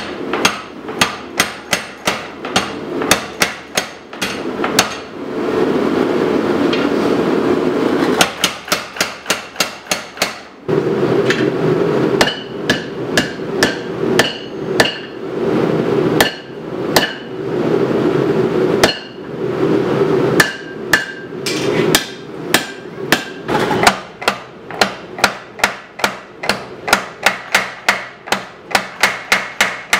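A 50 lb Little Giant power hammer forging a hot knife blank: runs of rapid, evenly spaced blows of the ram on the steel, with stretches of steady machine noise between runs. The blows come at about three to four a second at first and slow to about two a second near the end.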